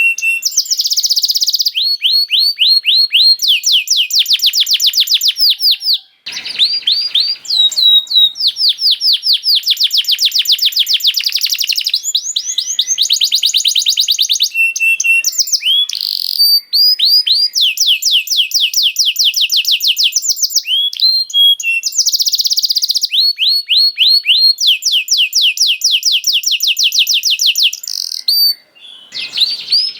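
Domestic canary singing a long, continuous song of rapid trills: runs of fast repeated notes high in pitch, each run lasting one to two seconds before switching to a new phrase, with short breaks about six seconds in and near the end.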